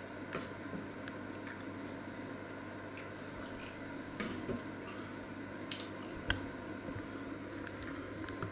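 Steady low room hum with scattered small clicks and knocks from handling things in a kitchen, the sharpest about six seconds in.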